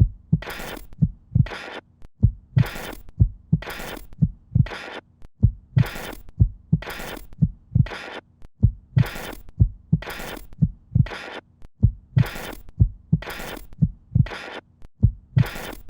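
Looped rhythmic soundtrack of deep heartbeat-like thuds under sharp hissing noise strokes, about three every two seconds, falling in repeating four-beat phrases with a short break between them.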